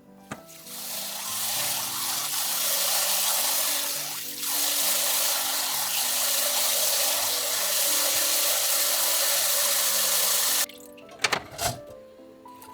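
Kitchen tap running water into a sink in a steady stream, with a brief dip about four seconds in. It is shut off suddenly near the end, followed by a few light knocks.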